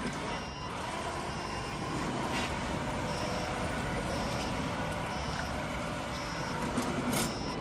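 Small single-cylinder gasoline engine of a remote-control lawn mower running steadily.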